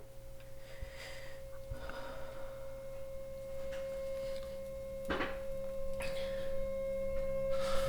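A steady, pure, tuning-fork-like tone held on one pitch and slowly growing louder, with fainter steady tones above and below it. Soft swishing noises come over it every second or two.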